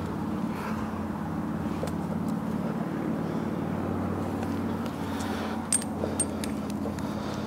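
A steady low mechanical hum, with rope rustling and two sharp metallic clicks about six seconds in as a carabiner on the climbing rope is handled.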